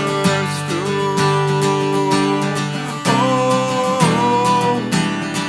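Acoustic guitar strummed in a steady rhythm under a man's voice singing long held notes of a worship song.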